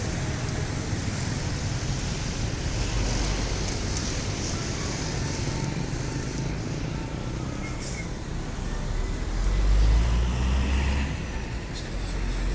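Road traffic with heavy bus engines running past: a steady low rumble that swells loudest about ten seconds in.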